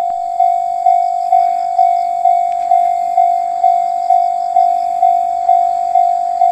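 Japanese railway level crossing warning bell ringing, one ringing tone struck over and over at a steady pace of a little over two strokes a second: the crossing is closed for an approaching train.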